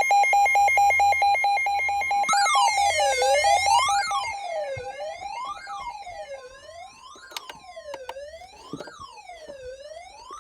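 Electronic emergency alert tones: a pulsing two-tone alarm, then, about two seconds in, a synthetic wailing siren that sweeps up and down about once every 1.6 seconds and fades to a lower level after a few seconds.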